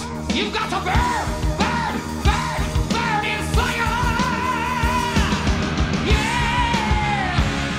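Heavy metal band playing live, with a male lead singer belting a line over drums and electric guitar. He holds long notes with a wide vibrato; the last one, about six seconds in, falls off near the end.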